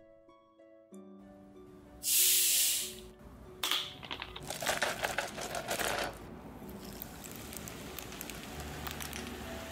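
A large plastic bottle of cola is opened with a loud hiss of escaping gas about two seconds in, followed by crackling fizz. From about the middle on, the cola pours steadily over ice into a paper cup, fizzing, with soft background music underneath.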